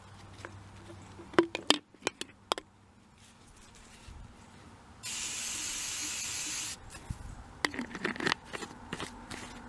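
Aerosol hairspray hissing steadily into an open plastic drinking bottle for just under two seconds, about halfway through, charging the homemade gun's combustion chamber with fuel. Before and after it come short clicks and knocks of hard plastic parts being handled and the cap being screwed on.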